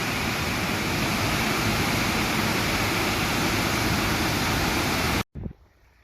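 Steady rushing roar of a waterfall, water pouring over the falls, that cuts off abruptly about five seconds in, leaving only faint background sound.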